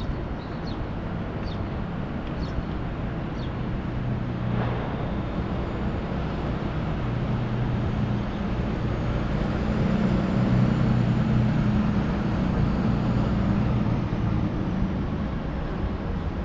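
City street traffic with a motor vehicle's engine humming low and steady; the engine sound swells louder about ten seconds in, then eases.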